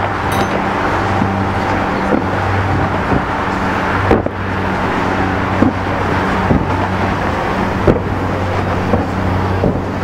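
Aerial fireworks bursting, a sharp bang about every second, over a steady low hum and a dense wash of background noise.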